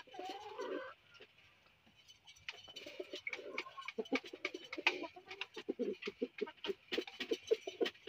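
Male fantail pigeon cooing repeatedly from a clay nest pot: a nest call that draws the female to the pot.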